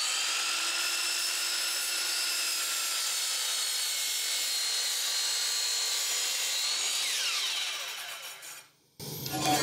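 DeWalt miter saw running at full speed with a steady whine as its blade is brought down through a wooden board, then winding down with a falling whine about seven seconds in and dying away near the end.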